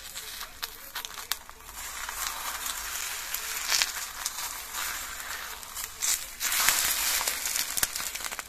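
Egg frying in a hot pan, sizzling and crackling steadily, with a louder surge of sizzle about two-thirds through as it is turned over with a metal spatula.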